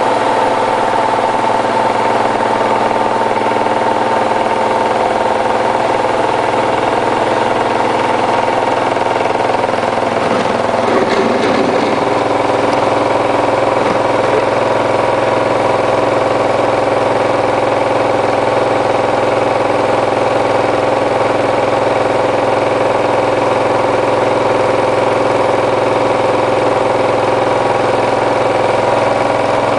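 Hotpoint Ultima WT960 washing machine spinning a load of mats, its motor running with a loud, steady whine made of several tones. About eleven seconds in the tones waver and shift slightly, then settle again.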